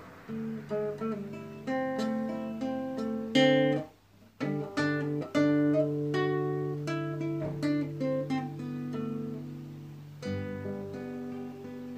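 Background music of plucked acoustic guitar notes and chords, broken by a short pause about four seconds in.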